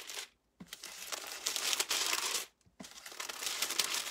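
Thin pages of a paper Bible being flipped by hand, a papery rustling that breaks off briefly twice.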